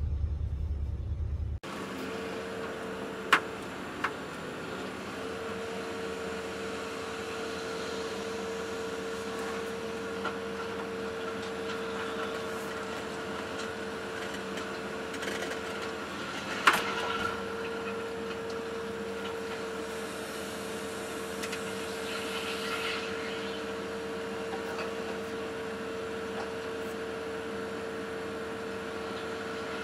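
Excavator running, heard from inside the cab while it works: a steady engine and machine hum with a constant whine. A few sharp clicks or knocks come through, the loudest about 17 seconds in.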